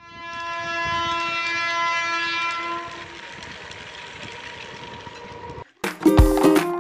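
Toy steam locomotive's electronic whistle sound, one steady horn-like tone held for about three seconds, then a fainter hiss that cuts off suddenly near the end, where guitar music starts.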